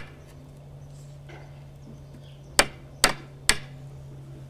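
Claw hammer striking a wooden batten: a faint tap, then three sharp blows about half a second apart in the second half.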